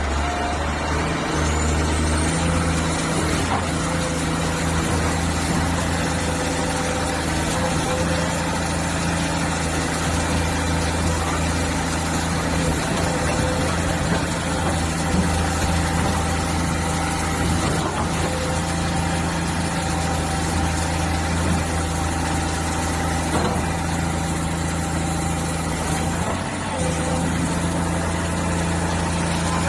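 Diesel engine of a Hyundai R210W-9 wheeled excavator running at a steady speed, with one brief dip near the end.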